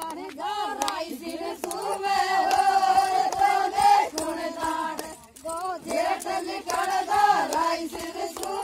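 A group of women singing a folk song together, with long held notes.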